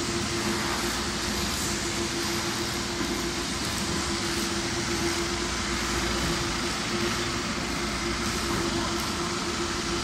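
Putzmeister P730 trailer concrete pump running while it pumps concrete through 100 mm hoses: a steady machine drone with a constant hum.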